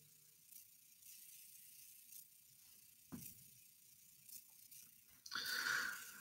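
Quiet room tone with a single soft click about three seconds in and a brief hiss near the end.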